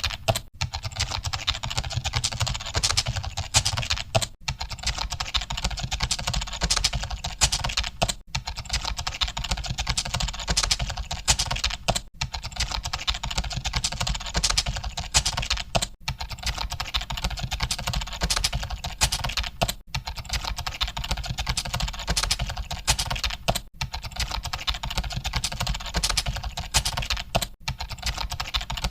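Computer keyboards being typed on continuously: a dense, unbroken clatter of key clicks, with a brief break about every four seconds.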